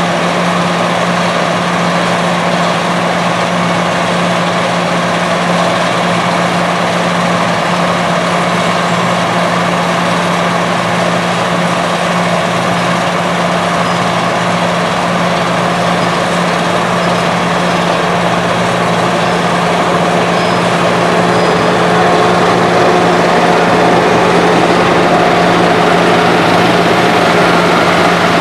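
Heavy diesel engines of road-construction machinery running steadily, with a constant low engine hum; the sound gets a little louder about three quarters of the way through.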